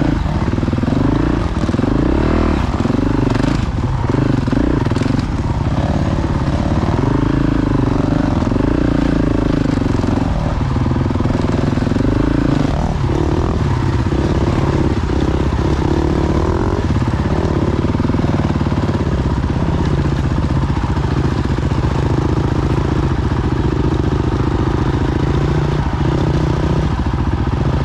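Motorcycle engine running under way, its note rising and falling with the throttle for the first half, then holding steadier.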